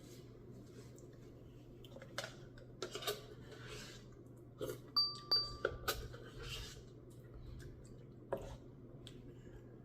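A spoon clicking and scraping in a cup of ice cream, a scattering of sharp taps with a short ringing tone just past the middle.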